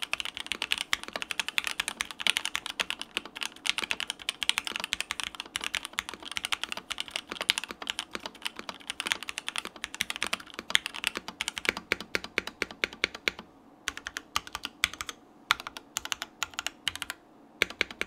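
Odin Nova65 aluminum keyboard with a polycarbonate bottom, fitted with Gateron Ink Black V2 switches lubed with Tribosys 3203 on an aluminum plate, typed on fast and steadily. The keystrokes are clacky, with little echo. About thirteen seconds in, the typing thins to scattered single keystrokes with short pauses.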